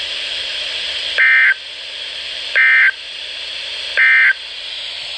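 NOAA Weather Radio end-of-message SAME data bursts: three short, identical bursts of rapid two-tone digital data, evenly spaced about 1.4 seconds apart, over steady radio hiss. This end-of-message code closes the weekly test broadcast and tells alert receivers the message is over.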